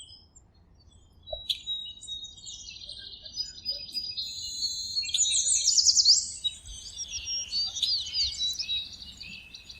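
Several songbirds chirping and singing, with overlapping high calls and rapid trills. It starts sparse, becomes busiest about halfway through with quick runs of sweeping notes, then thins out.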